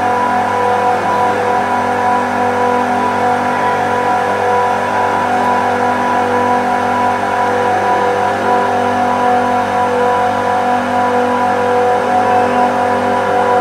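A rack of screw compressors running: a loud, steady machine hum with several constant tones.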